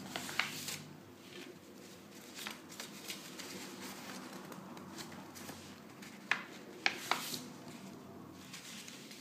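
A sheet of printer paper being folded and creased by hand into a paper airplane: soft rustling broken by short, sharp crinkles, the loudest a little past the middle.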